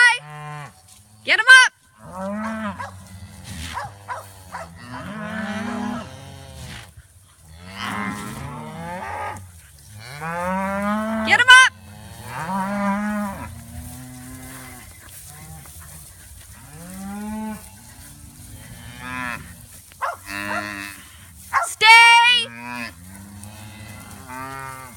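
A herd of cows and calves mooing, one call after another and sometimes overlapping, with a few sharp, loud, higher-pitched calls among the deeper ones.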